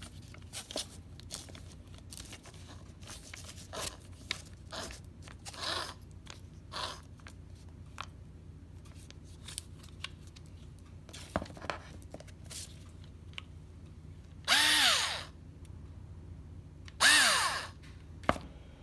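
Black+Decker cordless drill's motor run twice in short bursts, each about a second long with a whine that rises and falls as it spins up and down. Before that, scattered small clicks and handling noises as the keyless chuck is turned by hand on the magnetic bit tip holder.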